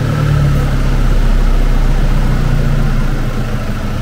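Nissan Navara's engine idling steadily just after being started, running smoothly, 'like clockwork'. The idle eases down a little about three seconds in.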